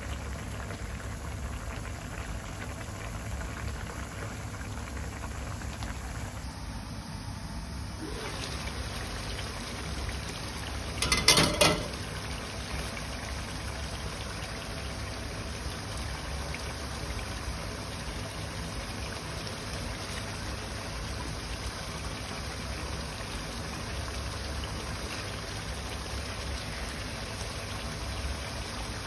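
Chicken adobo simmering in a nonstick wok, its sauce bubbling steadily. A plastic spatula knocks and scrapes against the pan in a brief cluster of clicks about a third of the way through.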